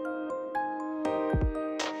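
Instrumental background music: held melodic notes over deep drum hits, with a sharp hit near the end.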